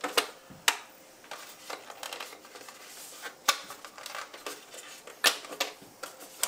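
Scattered sharp plastic clicks and light rattling as the body shell of an Arrma Fireteam 6S RC car is handled and lifted off its chassis.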